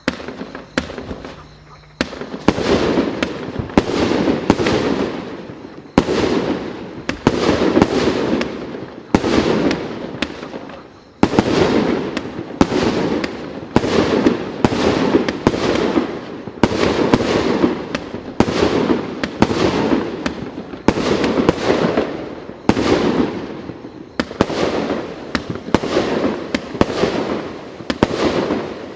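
'Лес чудес' (Forest of Wonders) multi-shot firework battery firing: a single shot at the start, then about two seconds in a long, even run of shots and bursts, one to two a second, each fading before the next.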